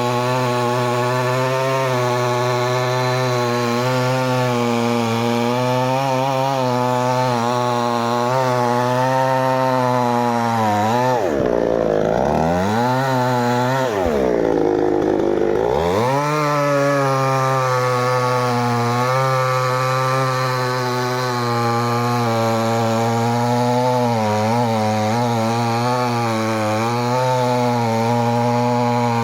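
Chainsaw running steadily under load while cutting wood. About eleven seconds in, its engine speed drops sharply and climbs back twice before settling back to a steady run.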